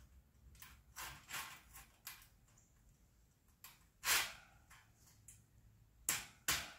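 Welded-wire fence panels being handled and fastened together, giving a series of short metallic scrapes and rattles, loudest about four seconds in.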